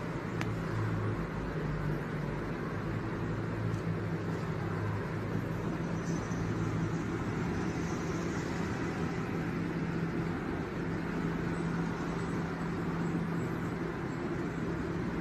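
Steady low hum of a running motor vehicle, with a constant drone under an even rushing noise.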